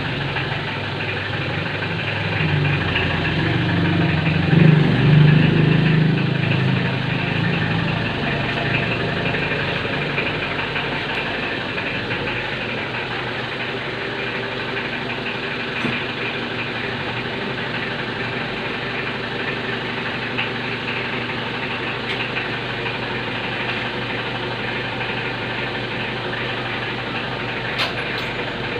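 Mitsubishi L300 engine running with a loud knocking sound, swelling louder about four to six seconds in and then settling to a steady idle.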